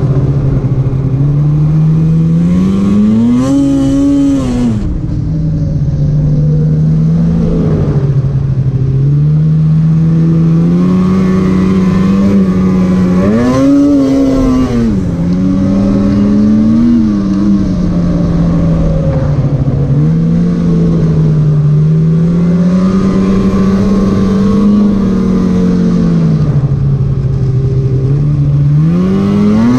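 Polaris 850 Patriot two-stroke snowmobile engine running at speed. Its pitch holds fairly steady, with brief rises as the throttle is opened: about four seconds in, around fourteen and seventeen seconds, and just before the end.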